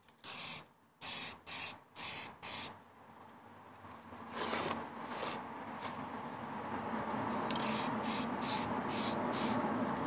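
Aerosol can of spray primer hissing in short bursts: five quick squirts in the first three seconds, a few more around the middle, then another run of five near the end.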